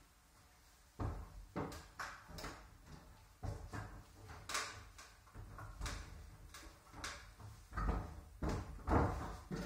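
A climber's hands and climbing shoes striking and scuffing the plastic holds of a plywood bouldering wall: irregular knocks and thuds, starting about a second in, with the loudest just before the end.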